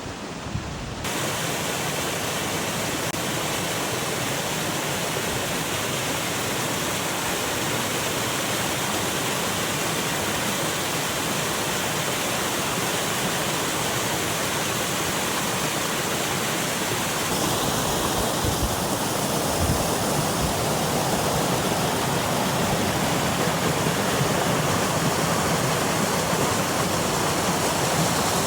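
Waterfall: a steady rush of falling and splashing water. About a second in, the sound shifts suddenly to a fuller, louder rush.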